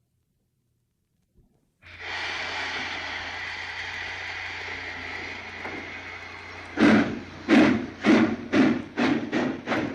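Steam locomotive pulling out of a station: a brief near silence with one faint click, then a steady hiss of steam from about two seconds in, and from about seven seconds in loud exhaust chuffs that start slow and quicken as the engine gets under way.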